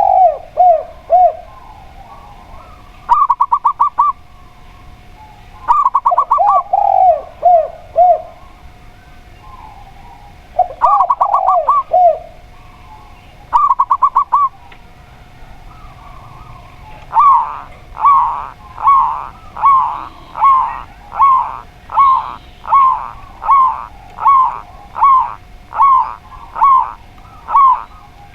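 Zebra dove and spotted dove cooing in turn: short bouts of rapid, trilled coos alternating with lower, falling coo notes, then from just past halfway a long run of evenly spaced short coos, about one and a half a second.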